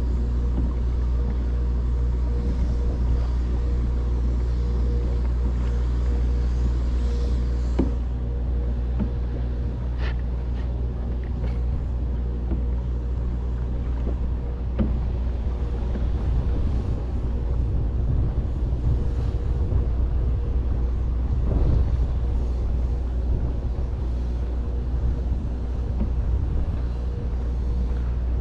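Steady low rumble with a constant hum, like a running motor, and a few short clicks about ten seconds in.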